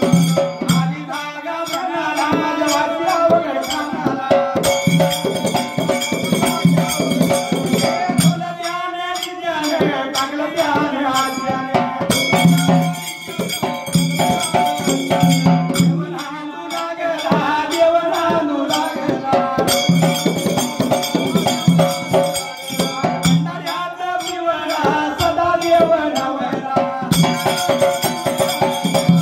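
Live Marathi shahiri folk music: a dhol drum beaten in a steady, busy rhythm with jingling hand percussion over it.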